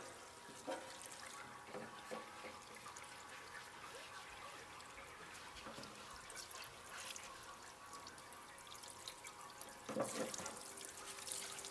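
Faint trickle and splash of solvent running from a parts-washer brush into the tank as a foam air filter is washed under it.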